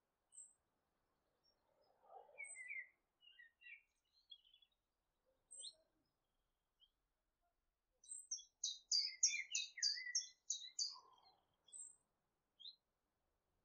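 Small birds chirping: scattered short high calls, then a rapid run of chirps about eight seconds in that lasts a few seconds.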